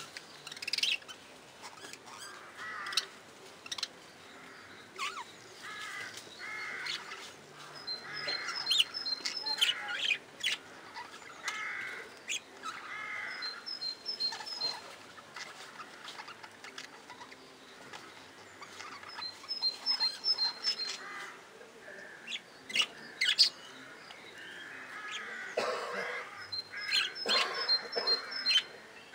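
A flock of budgerigars chattering: overlapping chirps and warbles coming in bursts, with several short runs of quick, high pips.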